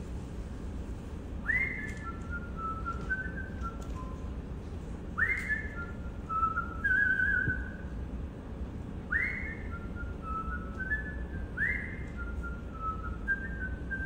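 A person whistling a short tune: four phrases a few seconds apart, each opening with a quick upward swoop and then stepping through a handful of notes.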